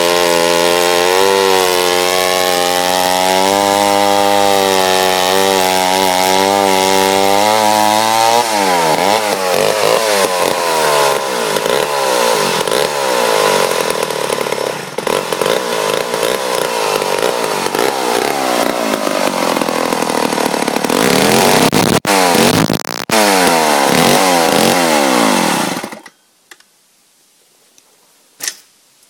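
Wright C70 116 cc two-stroke chainsaw cutting wood. It runs at a steady pitch, then climbs sharply about eight seconds in and swings up and down for a while. The engine stops suddenly near the end, and a single sharp click follows.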